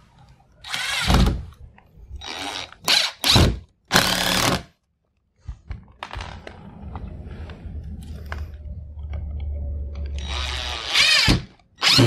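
Cordless drill/driver driving screws through a plastic electrical box into a wooden stud: several short bursts, then a longer steady run of about five seconds starting around six seconds in, and one more short burst near the end.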